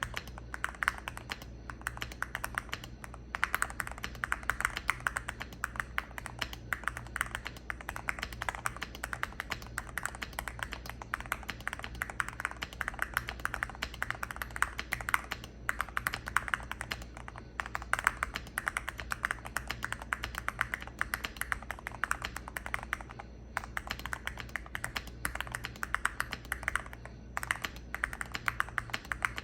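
Steady typing on a Cidoo V65 mechanical keyboard with lubed Gateron Milky Clear linear switches, tape-modded and with no case foam. It is a fast, continuous stream of key clacks, broken by a few brief pauses.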